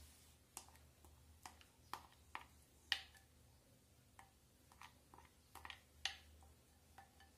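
Faint scattered taps and scrapes of a spoon against a glass bowl as thick ground chutney paste is scraped out; the sharpest taps come about three and six seconds in.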